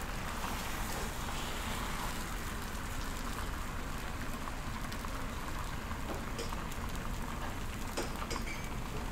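Beaten egg sizzling steadily on a hot steel flat-top griddle, with a few light taps and scrapes of a spatula in the second half.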